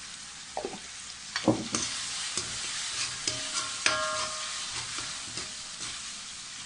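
Diced vegetables sizzling in hot oil in a metal wok on high flame while a steel ladle stirs them, clinking and scraping against the pan with a brief metallic ring, mostly in the first four seconds.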